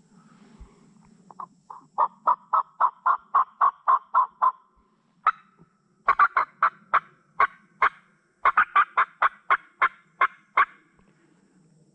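Turkey yelping: three quick runs of short, sharp calls, about four or five a second, with a single call between the first two runs.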